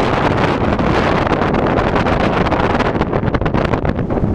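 Strong wind buffeting the microphone: a loud, steady rush with rapid irregular crackling gusts.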